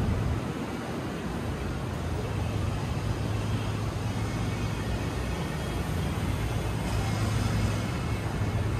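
Steady city traffic noise, a low rumble of vehicles running on the street below, with a brief brighter hiss about seven seconds in.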